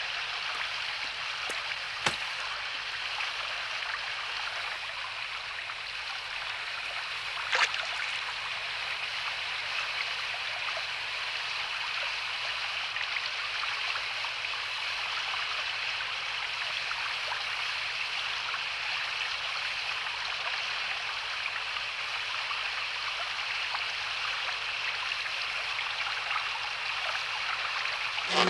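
Steady rushing and babbling of a shallow brook flowing over rocks. Two brief knocks stand out above it, one about two seconds in and one a few seconds later.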